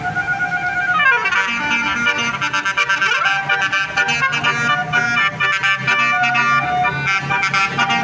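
Bus 'basuri' telolet horn playing a tune of reedy, flute-like notes, with a falling swoop about a second in.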